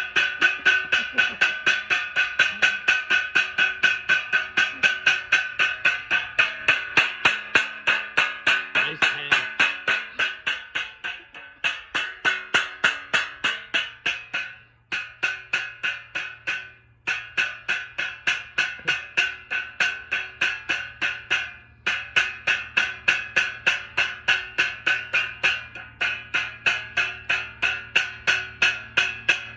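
A percussion instrument struck over and over in a steady beat, about three strikes a second, each with a bright ringing tone. The beat stops briefly a few times around the middle.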